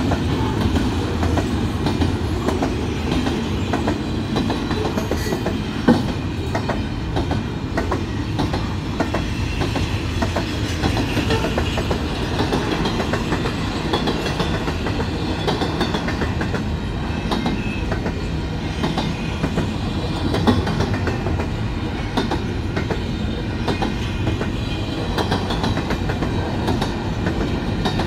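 Container-laden intermodal train cars rolling past: a steady rumble with the clickety-clack of steel wheels on the rails, and two sharper clanks, one about six seconds in and one around twenty seconds.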